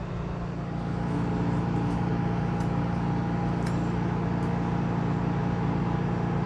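A steady mechanical hum, with a steady higher whine joining it and the level rising slightly about a second in, and a few faint clicks.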